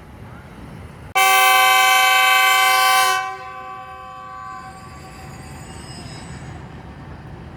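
Train horn sounding one loud blast of about two seconds, several tones at once, as the train departs. It dies away over about a second, leaving a low rumble of the train.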